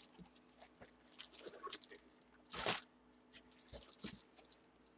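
Crinkling and rustling of packaging being handled: padded mailers and a cardboard box, with scattered small crackles and one louder rustle about two and a half seconds in.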